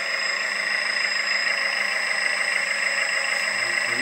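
Steady mechanical hum of a 1/14 RC dumper's onboard hydraulic pump running, mixed with the simulated idling diesel sound from its sound module, as the hydraulics tip the skip up.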